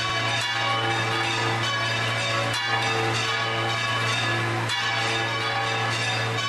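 Church bells ringing a continuous peal, several bells sounding together.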